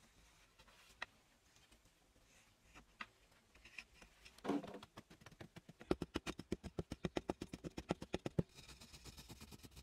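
Wooden stick scratching and scraping against a packed clay pit wall, a few light scrapes at first, then a quick run of about ten short scratching strokes a second for two to three seconds, stopping near the end.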